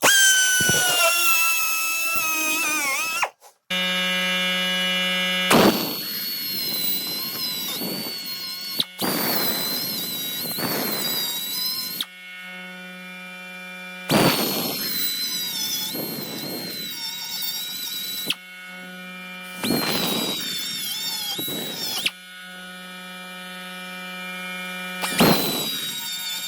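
Die grinder spinning a carbide burr, grinding out a broken stud and hardened easy out from a bolt hole. Its high whine wavers and drops in pitch as the burr bites, in repeated spells of grinding with abrupt breaks.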